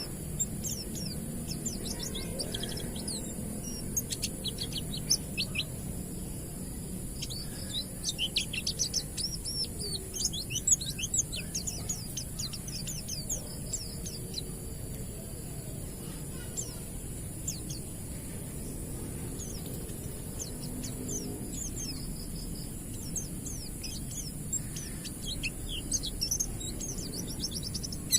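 White-eye (pleci) singing in the wild style: quick strings of high, thin chirps and trills that come in bursts, busiest in the middle and near the end, over a steady hiss.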